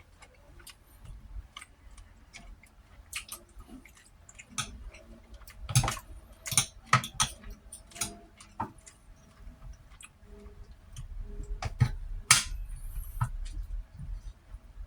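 Close-miked eating of beef ribs and rice: chewing with many irregular wet clicks and smacks of the mouth.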